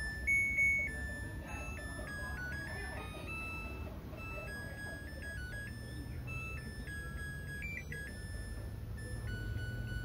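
Samsung WA80H4000 top-loading washing machine playing its end-of-cycle melody, a simple tune of single electronic beeps stepping up and down in pitch, with one louder, higher note near the start. It signals that the wash programme has finished.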